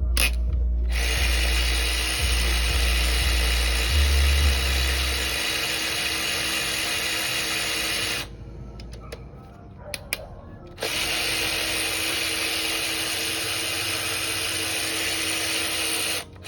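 Handheld power tool running in two long steady bursts, about seven and five seconds long with a short pause between, spinning fasteners out during the teardown of an LS4 V8. A low hum sits under the first few seconds.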